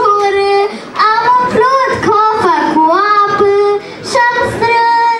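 Children singing a traditional Romanian children's game song in short phrases with held notes and brief breaks between them.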